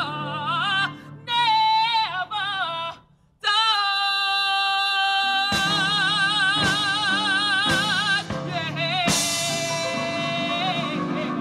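A singer with heavy vibrato performs live to band accompaniment. The voice breaks off about three seconds in, then holds one long note while drum strokes come in and accent it.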